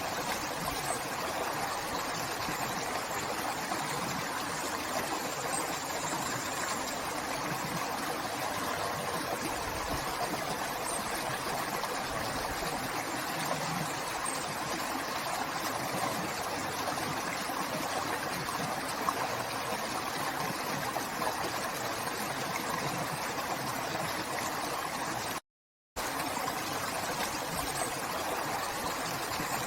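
River water flowing steadily, an even rushing. It cuts out to silence for about half a second near the end, then resumes.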